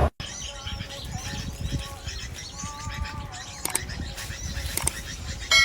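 Small birds chirping and twittering in the background, with a couple of sharp clicks.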